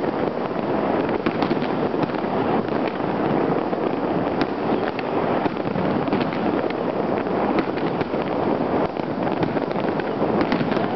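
Many fireworks and firecrackers going off at once, merging into a dense, continuous crackle with sharper pops scattered through it.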